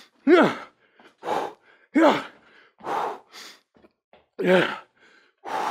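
A man breathing hard during vigorous lunges: about seven sharp exhales in a row, some voiced with a falling pitch, like grunted 'hoo' breaths.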